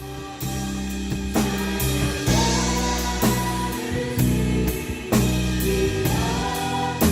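Band music with a steady drum-kit beat, about two hits a second, over bass, guitar and singing.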